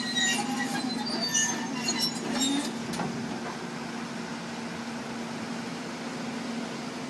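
Heavy diesel machinery running steadily with a constant low hum. High metallic clinks and squeals come through for the first three seconds, then stop, leaving only the engine sound.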